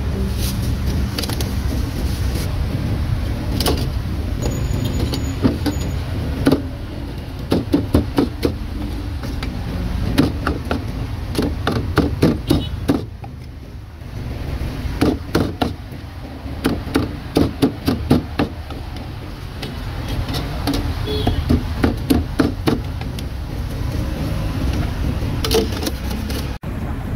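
Cleaver chopping roasted meat on a chopping board: sharp blows in quick runs of several a second, with short pauses between runs. A steady street-traffic rumble runs underneath.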